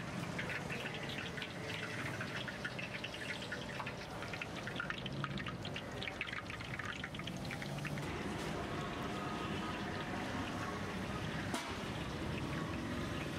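Batter-coated chicken pieces deep-frying in hot oil in a large kadai: a steady sizzle with dense crackling and popping, the crackle thinning into a smoother hiss after about eight seconds.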